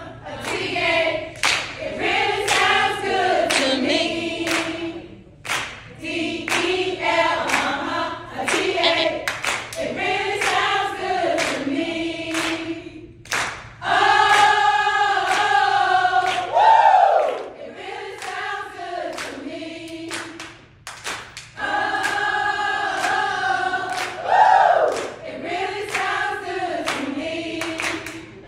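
A group of women singing and chanting together in unison, with sharp percussive hits from their step routine punctuating the rhythm. The voices break off briefly about three times.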